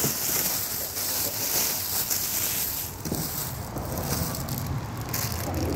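Clear plastic wrapping crinkling and rustling as hands pull it open and back off a boxed pressure washer, with a lull about three seconds in before the rustling picks up again.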